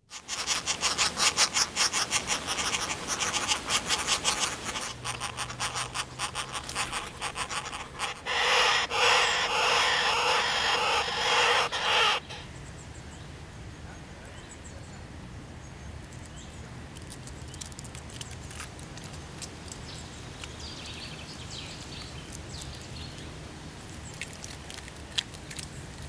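Woodpecker nestlings calling loudly in the nest hole while a stoat raids it, a rapid raspy chattering that is loudest just before it cuts off about twelve seconds in. Quieter woodland background follows, with faint bird calls and a few light clicks.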